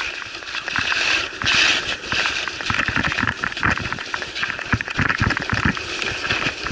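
Skis sliding and scraping over groomed, packed snow, the hiss swelling and fading with each turn, with irregular low thumps of wind buffeting the camera's microphone at speed.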